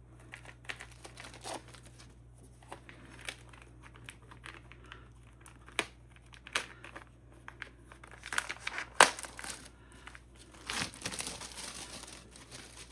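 Thin protective plastic wrap being peeled off and crinkled by hand: irregular crackles and rustles, with louder bursts of crinkling about two-thirds of the way through and again near the end.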